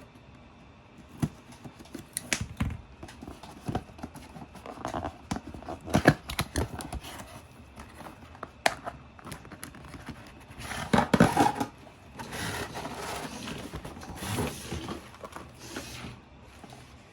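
Packaging being handled and opened: sharp clicks and knocks with stretches of crinkling and tearing of plastic and cardboard.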